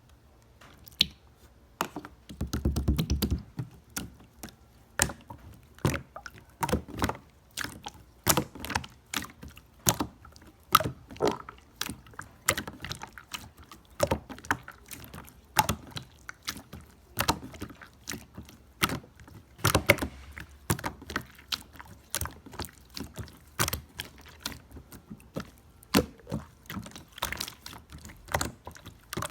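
Irregular sharp clicks and knocks, about one or two a second, with a short low rumble about three seconds in.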